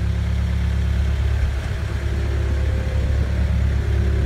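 Forklift engine idling with a steady low hum.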